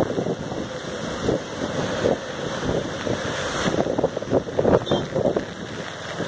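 Cyclone wind buffeting the microphone of a moving two-wheeler, in gusts, over the hiss of wet road and rain.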